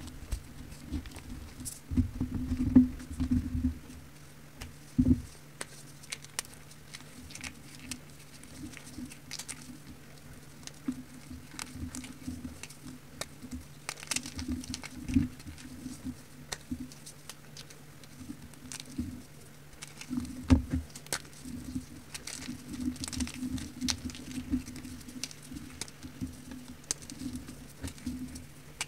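Fingers crushing and crumbling crumbly powder bars and loose powder: a dense, irregular stream of small crunches and soft crackles. A few louder crunches come about 2–3 seconds in, at about 5 seconds, and again around 15 and 20 seconds.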